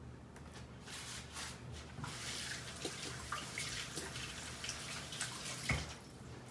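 Water running from a kitchen tap, a steady hiss starting about two seconds in, with a few light clicks and one louder knock near the end.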